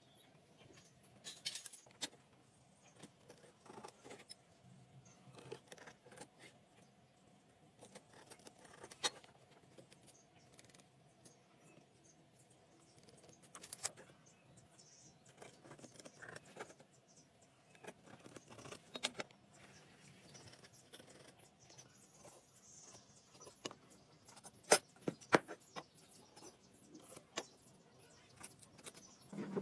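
Quiet, scattered clicks and taps of small objects being handled, with two sharper knocks near the end.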